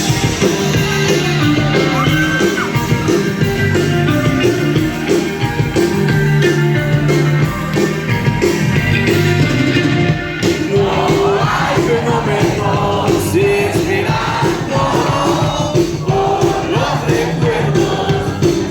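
Rock band playing live, with a steady beat and bass line. A sung vocal comes in about ten seconds in.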